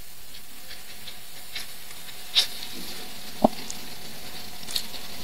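Steady hiss with soft, irregular ticks and two sharper clicks about two and a half and three and a half seconds in, from handwriting with a pen on a digital whiteboard.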